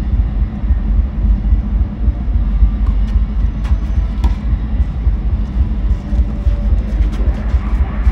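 Tennis ball struck with rackets during a rally: a few short sharp hits about three to four seconds in, over a loud steady low rumble.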